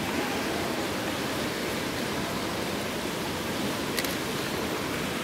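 Indoor swimming-pool hall ambience: a steady, even rushing noise, with one short click about four seconds in.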